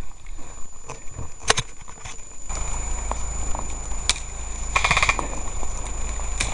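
Rustling and handling noise on a body-worn camera's microphone as the wearer pushes fast through forest undergrowth, with a steady low rumble from about halfway in. A few sharp cracks and a brief rattling burst a little after the middle.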